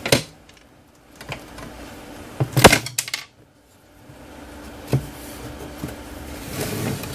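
Keithley 169 multimeter's case being handled and opened: a few sharp clicks and knocks, the loudest about two and a half seconds in, then soft rustling of hands on the case.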